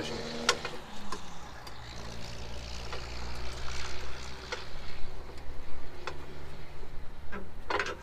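A few light metal clicks and knocks as the safety pins are pulled from the loader safety brace latch of a Cat 265 compact track loader, over a steady low engine hum.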